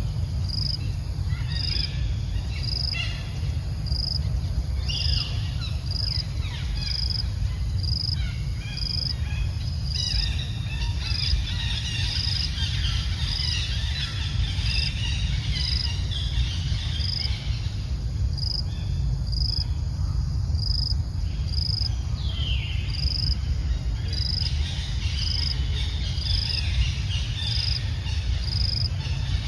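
Outdoor birds and insects: a short chirp repeating about once a second, with scattered other calls, over a steady low rumble.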